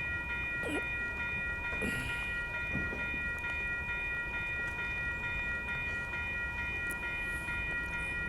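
Amtrak Coast Starlight passenger train rumbling steadily as it moves off, with several steady high-pitched tones ringing over it throughout.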